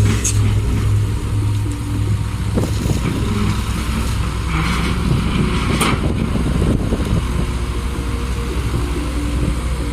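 Heavy diesel machinery engine running steadily, pulsing in the first couple of seconds, with a few sharp knocks about two to three seconds apart.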